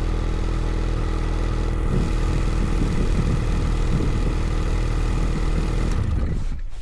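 Ski-Doo Skandic snowmobile engine running under load while breaking trail through deep snow, with slight wavering in pitch; the engine sound falls away sharply just before the end.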